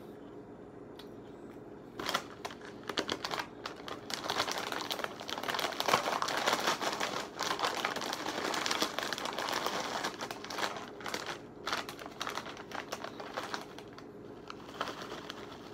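Crinkling and rustling of a foil chip bag as it is lifted and tipped up to pour the chips out. It starts about two seconds in, is densest in the middle, and thins to a few scattered crinkles near the end.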